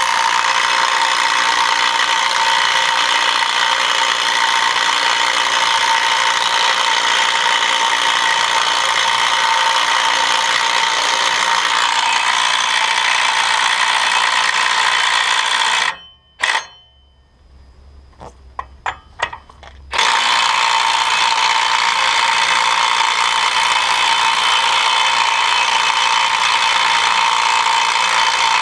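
Ingersoll Rand W5152 20V brushless compact 1/2-inch cordless impact wrench hammering steadily on the axle nut of a rusty wheel hub for about fifteen seconds. It stops for a few seconds with a few sharp clicks, then hammers again.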